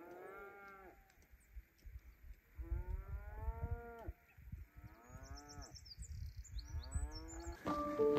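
Cattle mooing: four long calls in turn, each rising and then falling in pitch, with faint bird chirps high above them in the middle.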